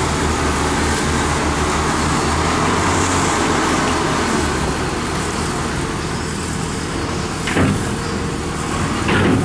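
Kubota DC-93 combine harvester's diesel engine running steadily as the crawler creeps forward onto a steel ferry deck, with two short louder knocks near the end.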